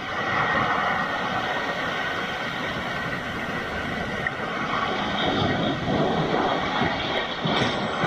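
Sea waves breaking against the rocks of a rocky shore: a steady rushing wash of surf, with a brighter hiss as a wave surges in near the end.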